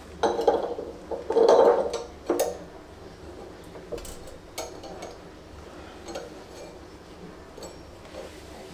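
Metal clinking and clattering as the halves of a split fan pulley and its thin steel spacer plates are handled and pushed onto the alternator shaft of a Fiat 500 engine. It is loudest in the first two and a half seconds, followed by a few light clicks.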